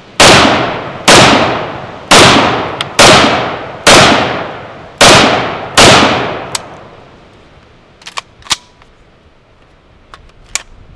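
SIG 556R rifle in 7.62×39 fired seven times, single shots about a second apart, each shot trailing off in a long echo. A few light clicks follow near the end.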